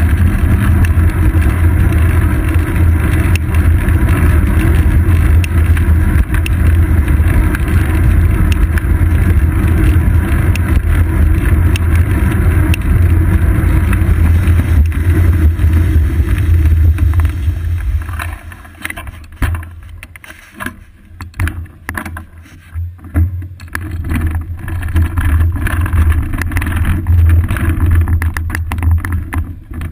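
Wind buffeting and road rumble on a seat-post-mounted GoPro as a road bicycle rides along a city street, a loud, steady low roar. About two-thirds of the way through it drops away as the bike slows, leaving patchy gusts and irregular knocks and rattles.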